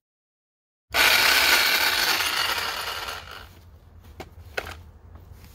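Corded reciprocating saw running on a newly wired GFCI outlet, showing that the outlet is live. It starts abruptly about a second in and winds down over the next two to three seconds, followed by a few light clicks.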